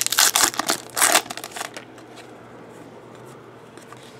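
Foil wrapper of a baseball card pack crinkling as it is torn open by hand, loudest in the first second and dying away after about a second and a half. Faint handling of the cards follows.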